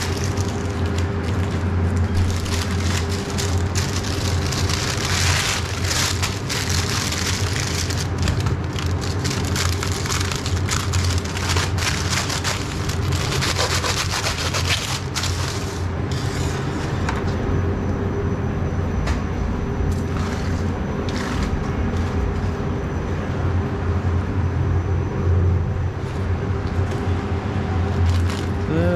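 Paper sandwich wrapper crinkling and rustling as it is folded by hand around a foil-wrapped sandwich, busiest in the first half and thinning to occasional handling rustles and clicks after about sixteen seconds. A steady low hum runs underneath.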